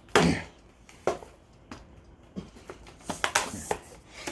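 Hands working at a boxed RC monster truck and its packaging: a sharp knock just after the start, then scattered clicks and taps that grow busier about three seconds in.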